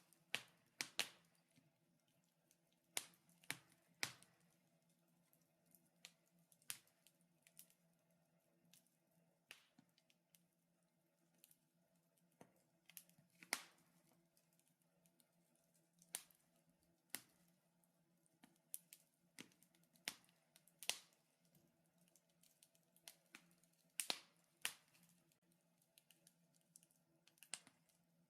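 Wood fire crackling in a fireplace: irregular sharp pops and snaps, some in quick clusters, over a faint steady hum.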